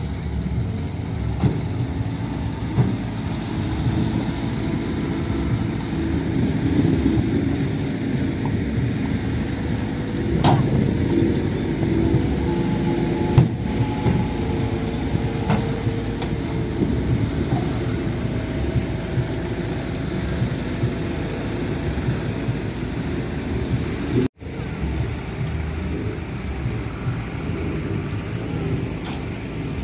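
Diesel dump truck engines running steadily while the trucks tip their loads of soil. The sound breaks off for an instant about three-quarters of the way through.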